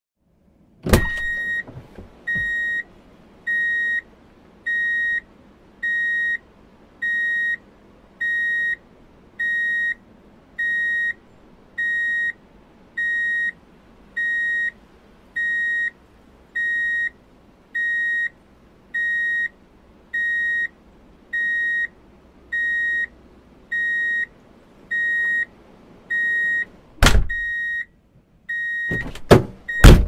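Vehicle reversing alert beeping: a steady high beep about half a second long, repeating a little slower than once a second. A loud clunk comes about a second in, before the beeping starts, and several more loud clunks come near the end, after it stops.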